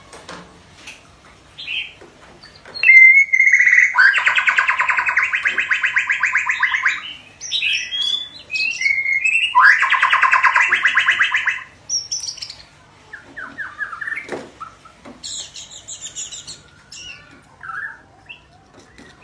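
Juvenile white-rumped shama practising its song: scattered short chirps and whistles, broken by two long, loud, rapidly pulsed rattles of about three and two seconds in the first half, and a high rapid trill later on.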